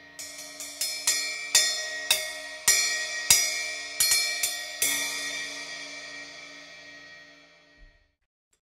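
Cut-down hi-hat top cymbal, a cracked 14-inch trimmed to about 11 inches, struck with a drumstick about a dozen times in the first five seconds. The hits grow louder, then the cymbal is left ringing and fading until the sound cuts off near the end. This is a test of how the repaired cymbal sounds.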